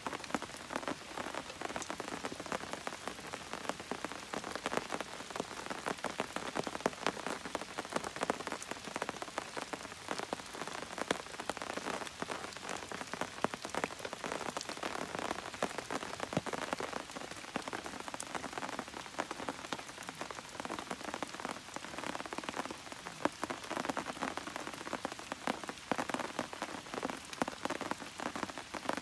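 Steady rain falling, many separate drops ticking against a surface.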